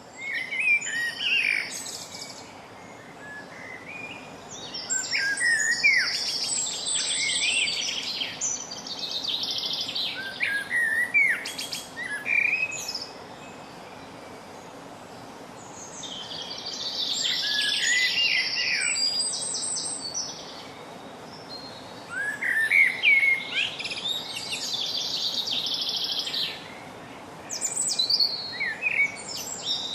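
A common blackbird singing close by, in phrases of low whistled notes with higher twittering, broken by pauses of a few seconds. A chaffinch sings further back.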